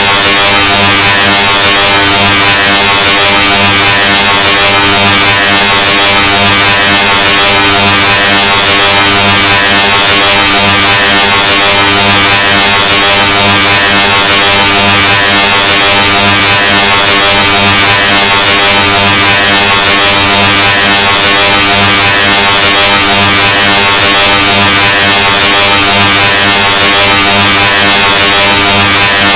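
Loudness 2.0 sound effect: a heavily distorted buzzing drone at maximum volume. It holds one unchanging pitch with a low hum and a dense hiss over it, and is pushed right up to full scale.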